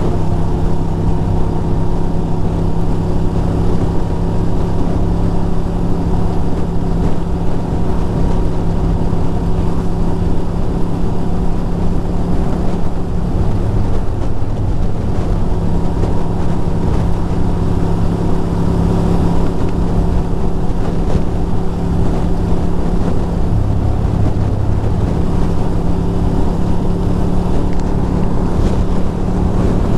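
Ducati Monster 620's air-cooled V-twin running steadily at cruising speed, with wind noise on the microphone.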